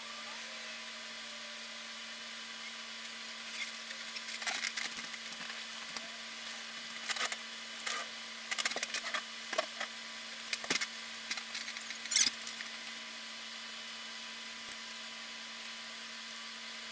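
Steady hiss and low electrical hum of a sound track with no real sound on it. A scattered run of sharp clicks and crackles comes in the middle, the loudest a little after twelve seconds.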